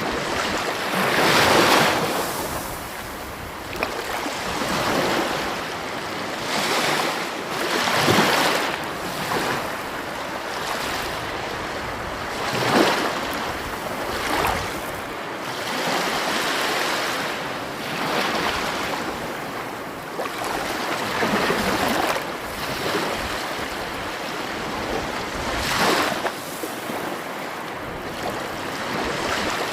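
Sea waves breaking and washing ashore: a continuous rush of surf that swells and falls back every few seconds.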